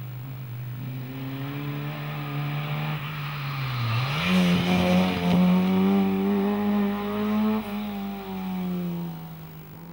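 Fiat 127 Giannini NPS rally car's four-cylinder engine passing at speed. Its note sinks as the car slows for the bend, then jumps up sharply about four seconds in as it accelerates out. It holds high and loud, then fades as the car drives away.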